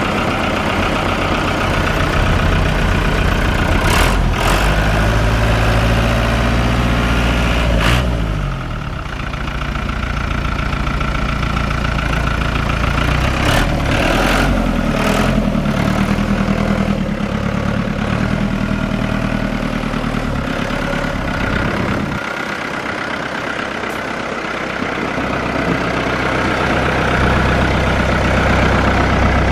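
Fiat Hesston 70-66 tractor's Fiat four-cylinder diesel engine running, its speed rising and falling several times, with a few sharp knocks along the way.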